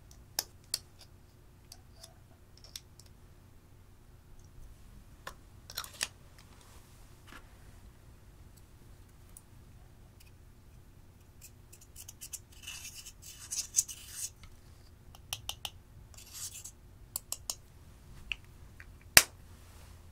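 Thin metal tool scraping and clicking against plastic makeup containers, digging pressed eyeshadow out of its pan: scattered light clicks, with gritty scraping a little past the middle and one sharp click near the end.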